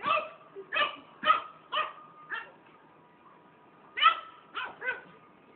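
Pug puppy giving short, high yipping barks at its own reflection in a mirror: about five barks half a second apart, a pause, then three more in quick succession.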